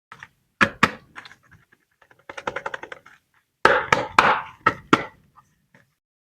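Chocolate packaging being handled and opened: two sharp clicks, a patter of small crinkling clicks, then a louder cluster of clicks and crackling.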